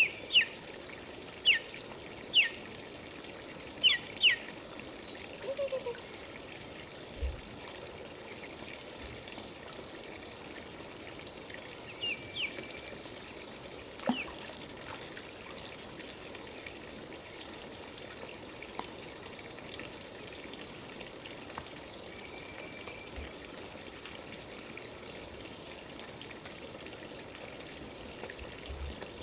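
Jungle ambience: a stream trickling under a steady high-pitched hiss, with a bird's quick falling chirps, several in the first few seconds and a couple more about twelve seconds in.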